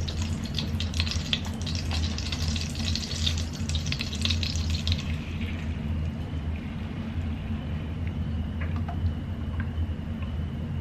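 Melted butter sizzling and crackling in a non-stick pan; the crackle dies away about halfway through, leaving a steady low hum and a faint high tone.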